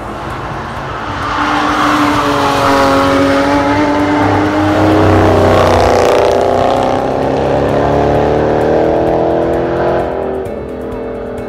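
A Ford Mustang's engine pulling hard as the car comes through a corner and passes by. The note climbs as it builds, is loudest about halfway through, and fades near the end.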